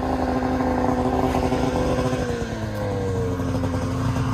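Snowmobile engine running at steady high revs, then the revs drop off about two seconds in and keep falling.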